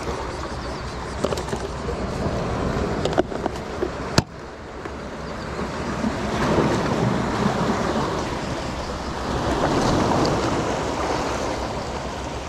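Waves washing onto the shore with wind noise on the microphone, swelling twice in the second half. A sharp click about four seconds in, after which the sound briefly drops.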